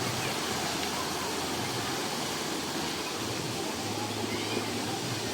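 Steady rushing of a waterfall: a dense, even noise without a break.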